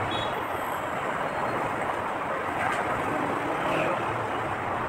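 Steady background noise with no distinct event, a faint tick about two and a half seconds in.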